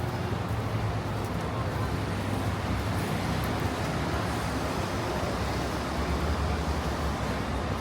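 Steady city street traffic noise: a low rumble of vehicles with an even hiss over it.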